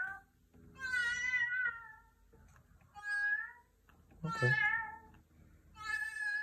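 Synthesized cat meows played on the keys of an ASM Hydrasynth Explorer. There are four wavering meow-like calls; the first and last are over a second long, and the last runs on past the end.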